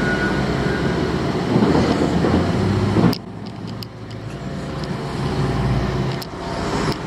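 Heavy construction machinery engine running with a low rumble; it drops sharply in loudness about three seconds in, then runs on more quietly.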